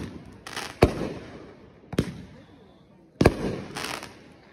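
Fireworks going off: four sharp bangs about a second apart, each trailing off in a rumbling tail, with brief hissing between them.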